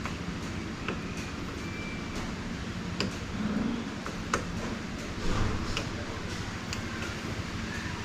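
Scattered sharp metal clicks and light knocks from the parts of a dismantled doorknob being handled during repair, over steady background noise.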